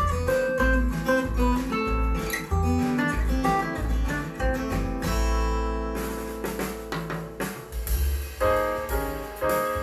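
Folk music with strummed acoustic guitar and bass, played back through a pair of JVC EX-P1 small wood-cone speakers. It ends on a held chord, and about six seconds in a jazz track begins.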